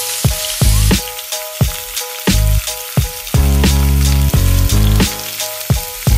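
Pork rib pieces sizzling as they fry in hot oil in a wok, a steady hiss, under background music with a steady beat and bass.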